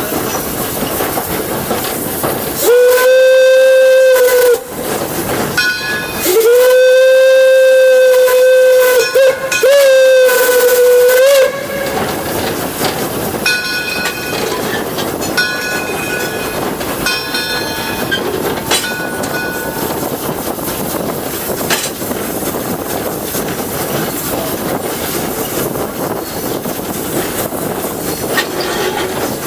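The steam whistle of 1897 Baldwin locomotive Detroit & Lima Northern 7 gives a short blast and then a long one that wavers in pitch at its end, over the steady noise of the moving train. Fainter ringing strokes about once a second follow, like the locomotive's bell.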